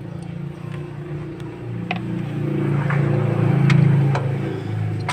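A vehicle engine's low hum swells, loudest a little before the end, then eases off, like a vehicle passing. A few short metallic clicks sound over it.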